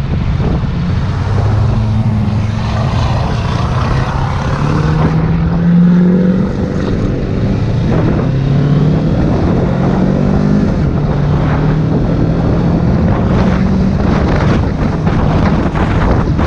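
Motorcycle engine under way, its note climbing and dropping a few times as the bike accelerates and changes gear, with wind buffeting the microphone.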